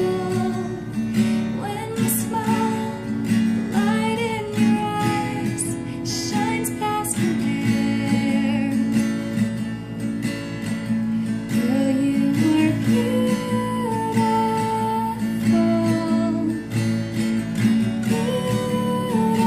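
Strummed acoustic guitar accompanying a sung melody.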